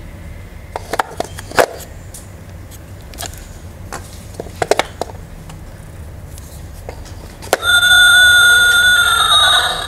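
Wooden puzzle cubes knocking and clicking as they are lifted and set into a wooden tray. About three-quarters of the way through, a cube drops into place with a click, and the tray's electronic sound module starts playing a horse whinny through its small speaker, the sign that the horse picture has been matched.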